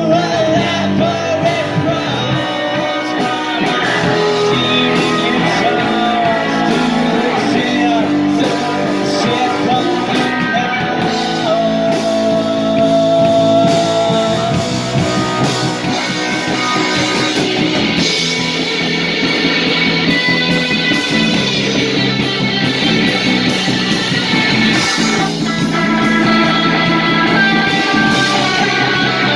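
Live rock band playing a song: electric guitar, electric bass and drums, with a lead vocal sung into the microphone.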